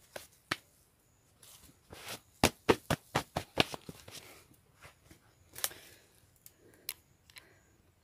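A run of sharp knocks and snaps: two near the start, then a quick cluster of about six in the middle and a few scattered ones later. They come from hands handling freshly dug wild tubers on dry, stony ground.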